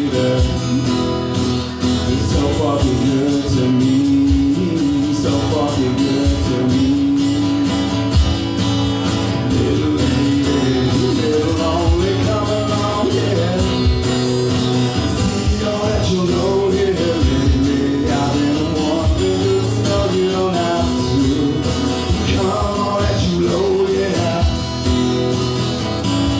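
Live band music: strummed acoustic guitar over bass and a steady beat, with a melody line carried above it.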